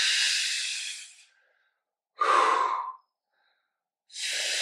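A man breathing out hard through the mouth in time with a Pilates leg extension: a long exhale at the start, a shorter breath a little after two seconds in, then another long exhale starting near the end. He is exhaling as each leg extends.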